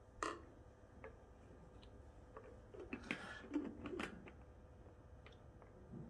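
Quiet room tone with a faint steady hum. A sharp click comes about a quarter second in, followed by scattered small clicks and rustles that are busiest around the middle.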